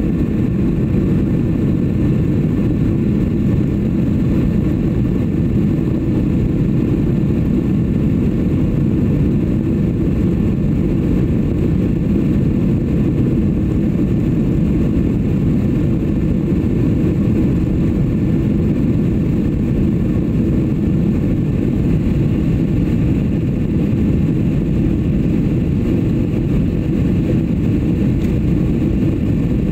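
Steady airliner cabin noise heard inside the passenger cabin: a constant low rumble of engines and rushing air, with a faint thin high tone held throughout.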